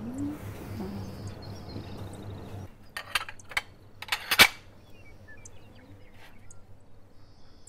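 Dishes and cutlery clinking as they are handled: a few sharp clinks around the middle, the loudest about four and a half seconds in, over a faint low hum that drops away near the start of the clinks.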